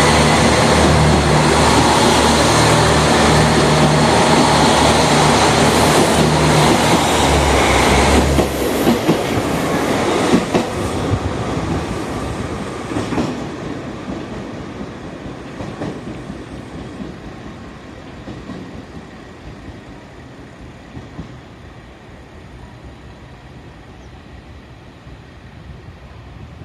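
KiHa 261 series diesel express railcars pulling out and passing close: a loud engine drone with rolling wheel noise. About eight seconds in the engine note drops away, then wheels click over rail joints and the rumble fades as the train draws away.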